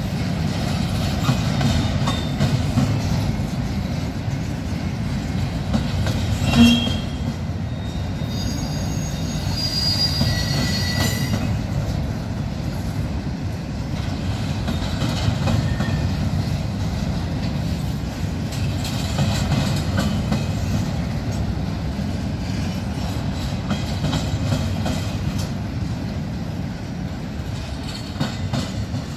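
Union Pacific intermodal freight train rolling past: a steady rumble of wheels on rail, with one sharp knock about six seconds in and high wheel squeal a few seconds later.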